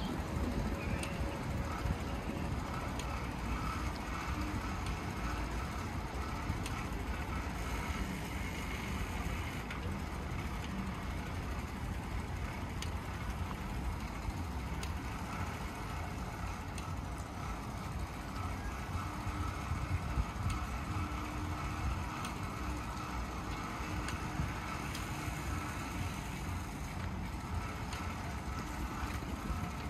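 A noisy bicycle rolling over paving stones: a steady low rumble from the tyres, full of small rattles and ticks from the bike itself.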